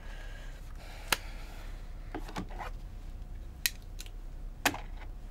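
Small objects handled in bed: soft rustling of paper or cloth with three sharp clicks, the first about a second in and two more close together near the end, over a low steady room hum.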